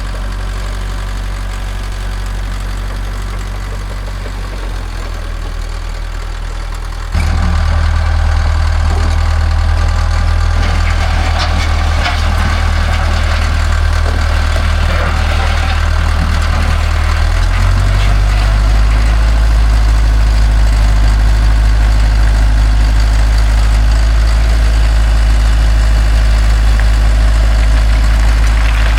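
1977 Caterpillar D4 bulldozer's diesel engine running steadily. About seven seconds in it gets suddenly louder, with irregular clattering for several seconds, and from about two-thirds of the way through the engine note drops deeper and stays louder.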